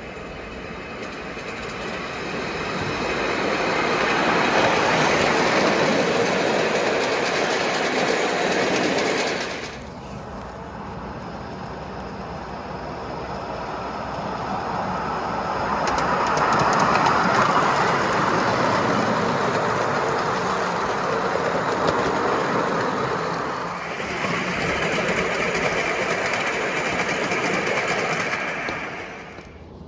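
5-inch gauge ride-on miniature train running along the track, its wheels rumbling and clattering on the rails. The noise swells as the train comes close and fades away, and it changes abruptly about ten seconds in and again near the end.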